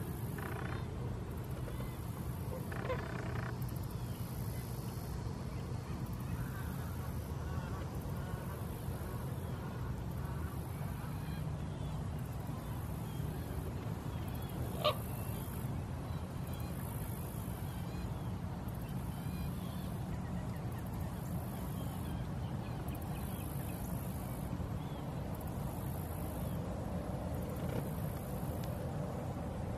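Outdoor background: a steady low rumble with a faint high hiss that swells about every one and a half seconds, a few faint distant bird calls, and a single sharp click about halfway through.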